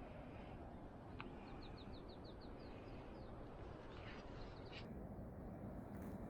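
A small bird singing a quick trill of about ten short, high, falling notes, over a faint outdoor hiss.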